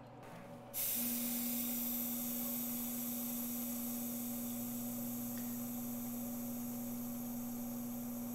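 L160 hydrogen welding system running with its torch lit: a steady hiss and a low hum come on abruptly about a second in and hold evenly.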